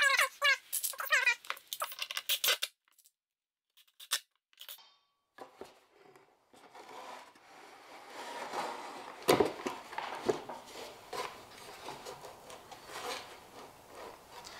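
Handling noise from a jigsaw and plywood boards being slid and set in place on a workbench: scraping and rubbing with scattered knocks, the sharpest about nine seconds in.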